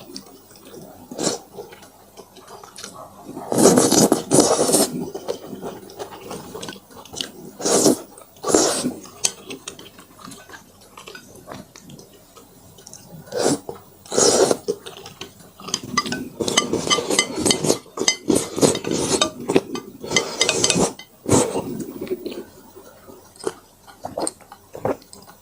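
Close-up eating of fire noodles: chewing, with several loud slurps lasting a second or two each, and sharp clicks of utensils against the dish in between.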